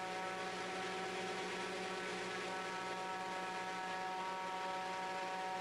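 Raptor aircraft's Audi 3.0 V6 turbodiesel engine running steadily at about 80% throttle during a static run-up, turning its pusher propeller; a steady, even drone.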